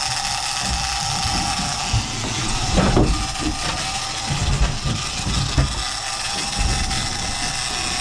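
Game-fishing reel's drag and clicker running with a steady whine as a hooked striped marlin takes line, over a low rumble.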